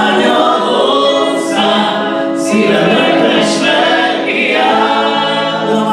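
Choir singing a Hungarian worship song, several voices together holding sustained sung phrases.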